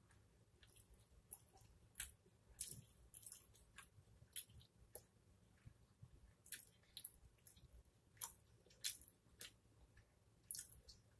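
Close-up chewing of a mouthful of pizza, closed-mouth: quiet, irregular wet clicks and smacks of the mouth, a few every second.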